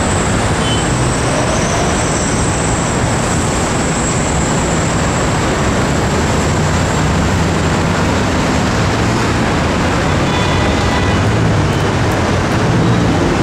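Heavy road traffic with a McLaren GT's twin-turbo V8 running at low speed as it moves past in the traffic, mixed into a steady loud noise of engines and tyres. A thin high whine sounds over the first half and fades out.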